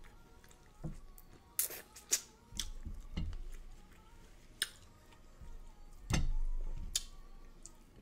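Close-miked eating sounds: mouth smacking and chewing on seafood, with scattered sharp clicks and a dull thump about six seconds in.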